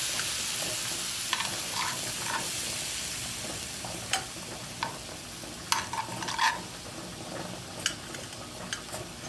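Masala paste in hot oil sizzling after half a tumbler of water is poured in, the hiss slowly dying down as it heads toward the boil, with scattered light pops and clicks.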